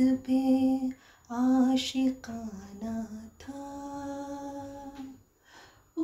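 A woman humming a slow melody without words, in a few held notes, the longest lasting more than a second, with a short pause near the end.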